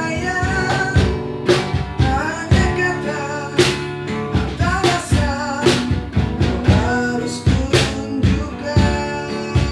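A singer holding wavering, vibrato-laden lines over a band accompaniment of guitar and drums, with a strong drum beat about once a second.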